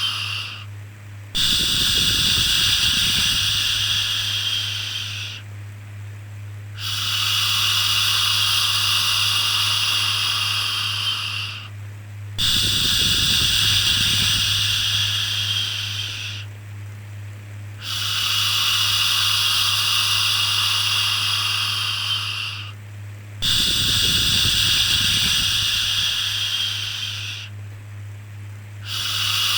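Long, steady 'shhh' shushing for soothing a baby, each lasting four to five seconds with a short break between, over a steady low hum. A low whoosh comes in about every eleven seconds.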